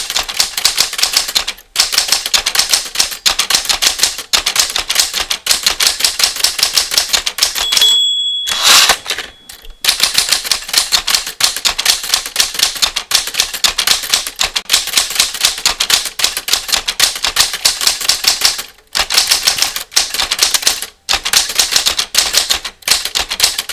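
Manual typewriter keys striking in rapid, steady succession. About eight seconds in, the margin bell dings and the carriage is returned with a short rushing slide, then typing resumes.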